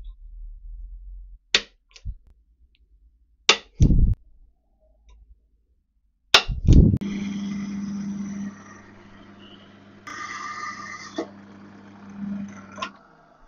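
Centre punch marking hole positions on a steel bracket held in a vice: sharp metallic taps, mostly in pairs. Then a bench pillar drill runs and bores into the steel for dowel pin holes, with a steady motor hum under the cutting; it stops shortly before the end.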